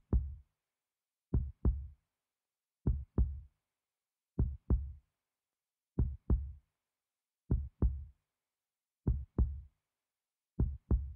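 Heartbeat sound effect: slow, regular lub-dub double thumps, about one pair every second and a half, with silence between them.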